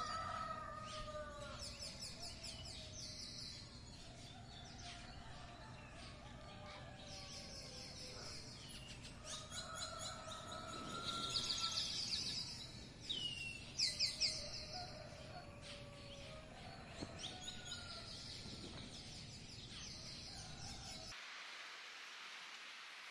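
Small songbirds chirping and trilling over steady outdoor background noise. The low background rumble drops out near the end, leaving a light hiss.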